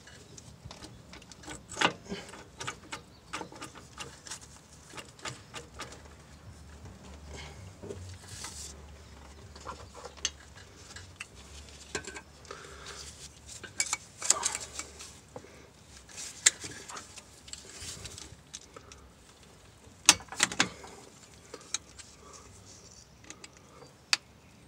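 Scattered sharp metal clicks and clinks as an axle C-clip is worked into place on the axle shaft end inside an open rear differential, among the spider gears. The loudest click comes about two seconds in, with a quick cluster in the middle and a close pair near the end.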